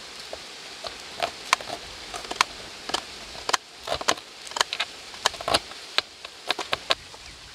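A knife chopping red onion on a plastic cutting board: irregular sharp taps, some single and some in quick runs, stopping just before the end.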